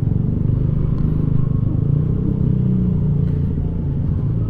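Yamaha Aerox 155 scooter's single-cylinder engine running steadily on its stock muffler, with a slightly wavering hum.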